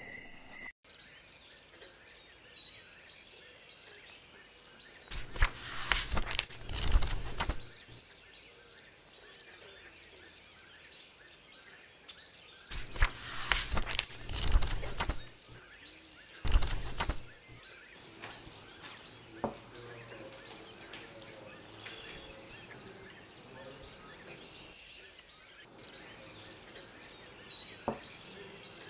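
Newspaper pages rustling and crackling as they are shaken open and folded, in several bursts. Small birds keep chirping in the background.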